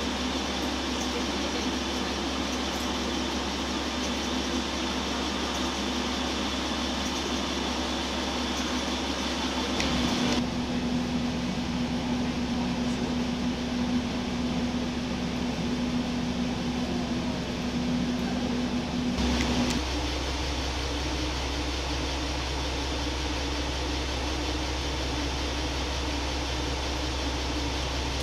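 Diesel railcar idling at a standstill, heard from inside the car as a steady engine hum with a constant low drone. The hum's character changes abruptly about ten and nineteen seconds in.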